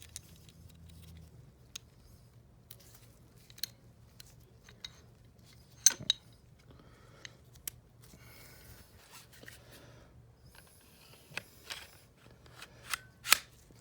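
Metal parts of an IWI Masada 9mm pistol being handled and fitted together during reassembly: light scrapes and scattered sharp clicks of the barrel, recoil spring and slide, with the loudest clicks about 6 seconds in and near the end.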